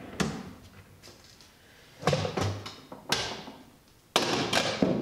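A drawer of a shop storage cart running out on full-extension slides, then a series of knocks and clunks as items are set into it. The loudest clunk comes a little after four seconds in.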